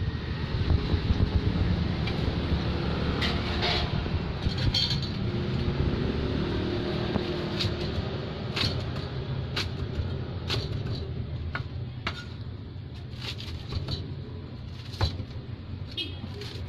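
A knife cutting fried martabak on a wooden cutting board, giving sharp knocks about once a second, over a steady low rumble.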